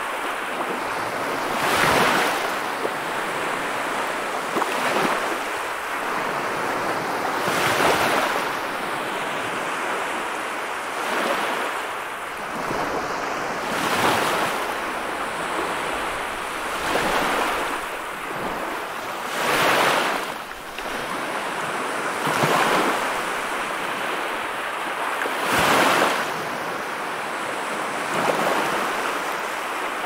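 Sea waves surging and washing in over a continuous hiss of surf, one wave swelling up about every three seconds.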